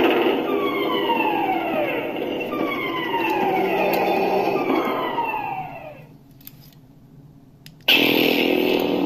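Lightsaber sound font from the Korbanth DV6 hilt's Nano Biscotti V4 soundboard, played through its 28 mm speaker. A buzzing hum carries a run of overlapping falling pitch swoops, then fades out about six seconds in. Near the end the hum cuts back in suddenly.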